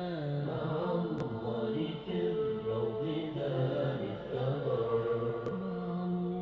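Arabic nasheed-style vocal chanting: voices singing a slow melody with long held, gliding notes.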